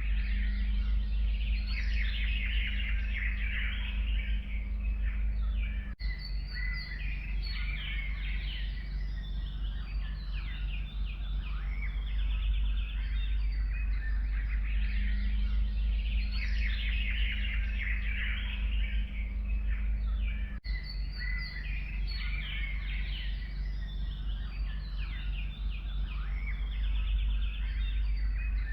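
A chorus of many forest songbirds chirping and trilling over one another, over a steady low rumble. There are two brief dropouts, about 6 and 20 seconds in, where the recording is spliced.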